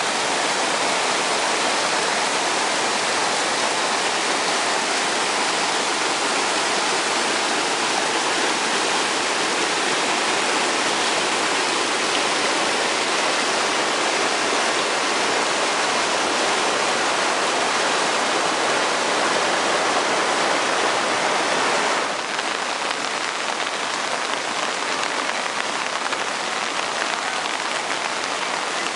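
Seasonal creek in flood after heavy rain, its churning muddy white water rushing steadily. Near the end the rush drops a step quieter and thinner.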